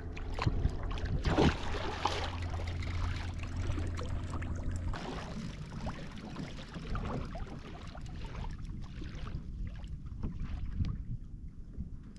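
Water splashing and slapping around a fishing kayak's hull, with irregular small knocks, loudest in the first couple of seconds. A low wind rumble on the microphone stops about five seconds in.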